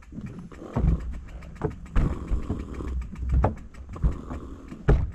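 Fat bike rolling over loose, unstable wooden boardwalk planks: irregular knocks and thuds of the boards shifting under the tyres, over a low rumble.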